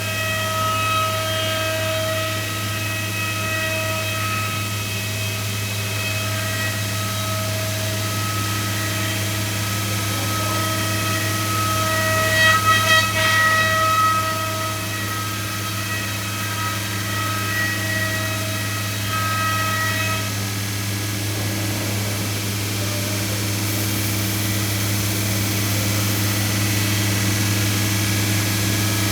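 Anderson Stratos/Pro CNC router running a program: a high spindle whine over a steady low hum, with a louder stretch of cutting near the middle. The whine stops about two-thirds of the way through, leaving the hum running.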